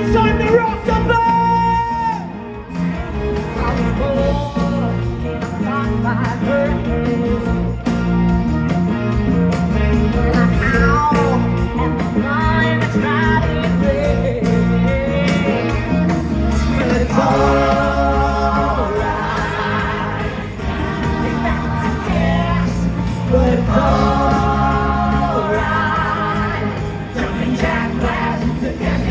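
A live rock band with electric guitars and a singer, playing a song.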